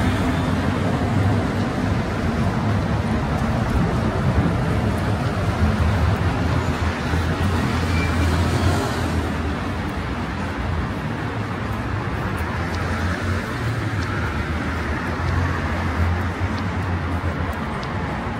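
Steady road traffic on a busy city street, cars going by in a continuous low wash of engine and tyre noise that swells slightly between about four and nine seconds in.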